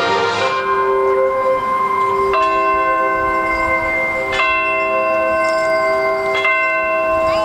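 Bells tolling in a marching band show: three strokes about two seconds apart, each ringing on under the next, after a held chord fades away at the start.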